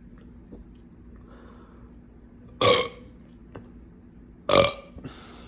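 A person burping twice, loudly, about two seconds apart, each burp short, after chugging a drink.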